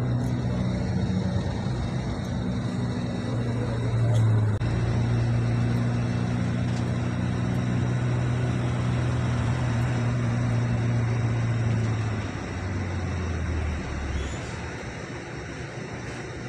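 Tour bus engine running as it drives through traffic, heard from inside the cabin: a steady low drone that steps down in pitch twice near the end as it eases off.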